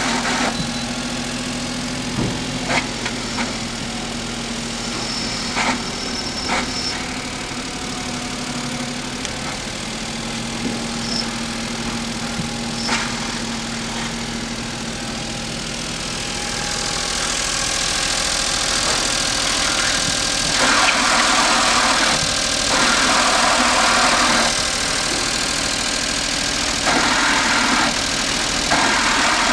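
Idling engine of a Nissan Clipper kei van, joined in the second half by a rough, hissy grinding whenever the clutch pedal is pressed, in louder stretches of about two seconds. The grinding comes from a damaged, nearly seized clutch release bearing.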